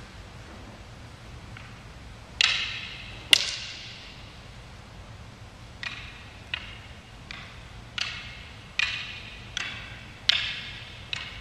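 Pair of martial-arts sticks clacked together in a double-stick form: about ten sharp wooden strikes, irregularly spaced, starting about two seconds in, each ringing on in a large echoing hall.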